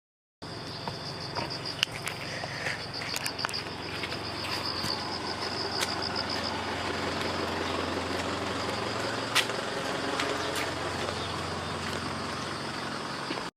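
A vehicle engine running steadily with a low hum, while insects trill in a high pulsing tone over the first half; a few sharp clicks, the loudest about nine seconds in.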